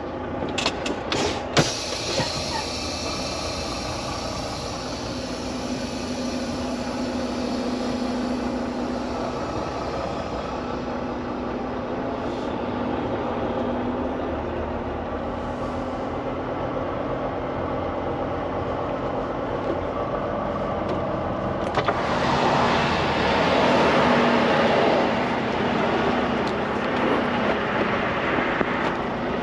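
Volvo VNL semi truck's diesel engine running steadily as the truck rolls slowly, heard inside the cab. There are a few sharp clicks in the first two seconds, and a louder rushing hiss sets in about three-quarters of the way through.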